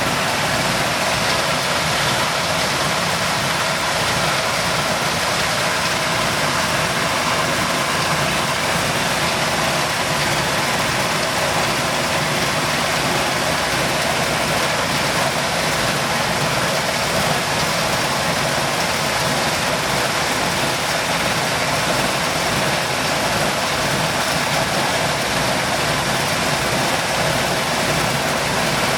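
Electric maize milling machine running steadily, a dense, even mechanical noise that does not change.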